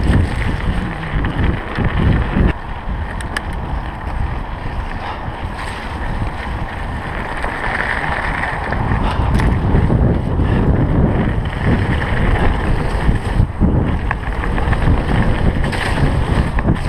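A mountain bike riding fast down a rough, wet dirt trail: a steady rush of tyres on dirt and wind buffeting the microphone, with occasional clicks and knocks from the bike.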